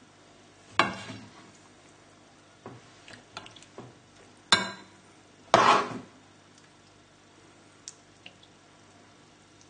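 A metal spoon knocking and scraping against a pan and a ceramic bowl as a thick tomato-and-bean stew is spooned out. There are sharp clinks about a second in and again at about four and a half seconds, a short scrape just after, and faint taps with quiet gaps between.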